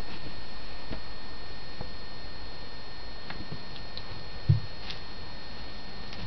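Kitten playing with a rope in a cat bed: a few faint soft taps and rustles over a steady hiss and hum, with one short low thump about four and a half seconds in.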